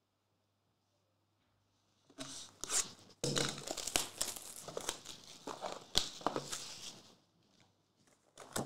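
Plastic shrink wrap being torn and crumpled off a trading-card box, starting about two seconds in as a dense crinkling with sharp crackles. It dies down about seven seconds in, with one short crackle near the end.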